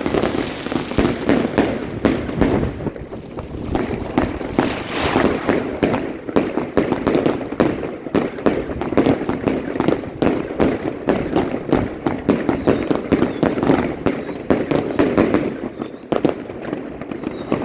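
Evolution 'Bunker Blaster' firework box firing, a dense run of rapid crackling pops that barely lets up, easing briefly about three seconds in and again near the end.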